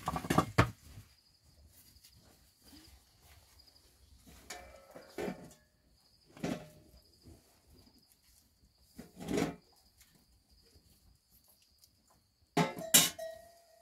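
Crickets chirping steadily in the background, broken by a handful of short clatters and knocks of metal cookware, the last one ringing briefly.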